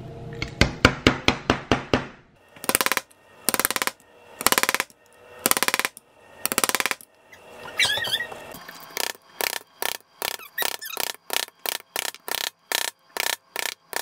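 Claw hammer tapping a nail through a thin metal mason jar lid into a pine board, punching holes one after another. A quick run of taps comes first, then several short bursts of rapid strokes, then steady strikes about two or three a second.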